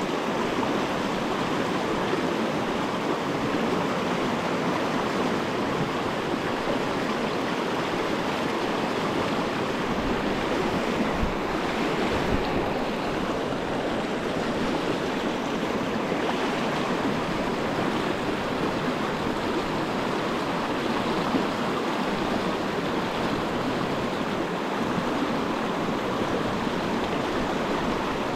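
Steady rush of a shallow, rocky river running over stones and riffles, heard close up from within the current.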